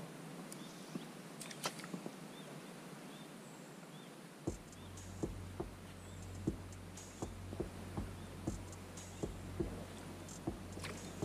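Quiet riverside ambience with a faint high note repeating about every half second, then a low hum and scattered light clicks from about four seconds in.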